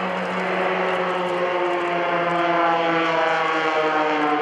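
Three aerobatic piston-engine propeller planes (CAP 580, Extra 300 and MXS) flying past in close formation, a steady engine-and-propeller drone whose pitch slowly falls as they go by.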